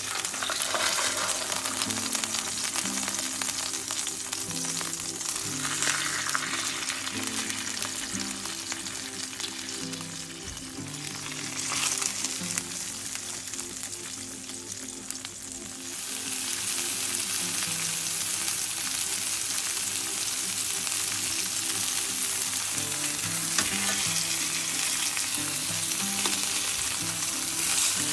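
Flour-dredged chicken breasts sizzling steadily as they shallow-fry in hot oil in a stainless steel pan.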